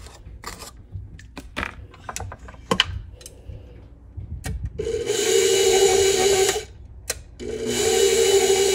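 A few knocks and scrapes against the mixer's stainless steel bowl. Then, about five seconds in, a stand mixer's motor runs its flat beater through thick cookie dough in two short bursts of about two seconds each, with a brief stop between.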